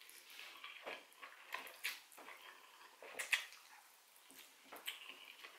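Mouth sounds of a person eating fried instant noodles (mi goreng): soft slurps and wet chewing smacks in a string of short clicks, the loudest about three seconds in.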